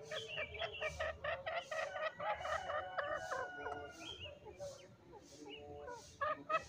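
Green junglefowl calling: a fast run of short clucking, chattering calls for about four seconds, dying down and starting again near the end.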